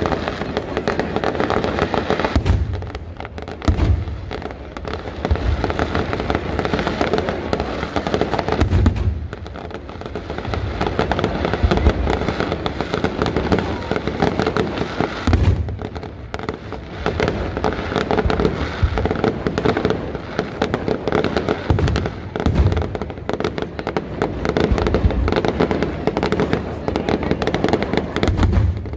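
Aerial fireworks display: a continuous run of shell bursts and crackling, with heavier booms every few seconds.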